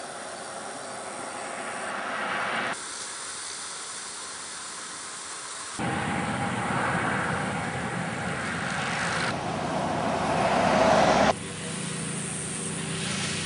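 Road traffic passing: tyre and engine noise that swells as vehicles approach, in several short clips that cut off abruptly. The loudest pass builds up just before the last cut, after which a steady engine hum goes on.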